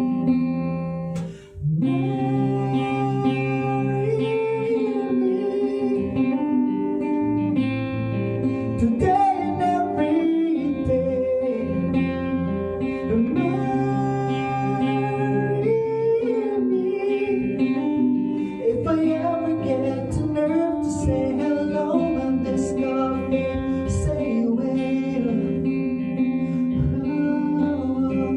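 Acoustic guitar playing with a voice singing the melody over it, with a brief drop-out about a second and a half in.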